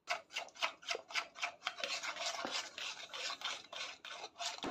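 A steel spoon scraping round a small metal bowl of melted dark compound chocolate, stirred briskly in rapid repeated strokes, about three to four a second. The chocolate is being beaten until the last chunks melt and it turns glossy.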